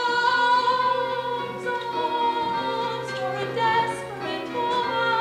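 Music from a live stage musical: long held high notes over a steady low sustained note.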